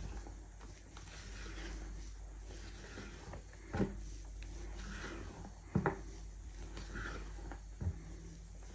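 A silicone spatula stirring and folding flour into cake batter in a glass bowl: soft scraping, with three sharp knocks against the bowl about two seconds apart.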